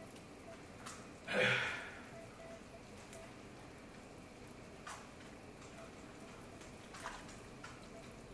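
Soup being ladled from a pot into a bowl: a short splash of liquid about a second and a half in, then a few faint taps of the ladle.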